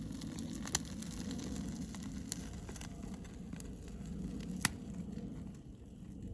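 Wood campfire crackling faintly, with three sharp pops over a low steady rustle.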